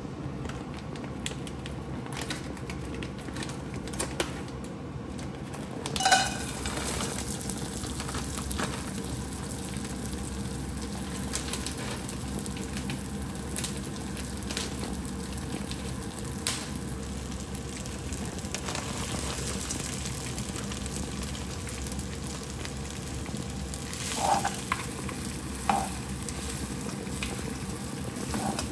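Shrimp fried rice frying and sizzling steadily in a nonstick wok. A loud rattle about six seconds in comes as the rice goes into the pan. Near the end a spatula knocks and scrapes against the pan as the rice is stirred.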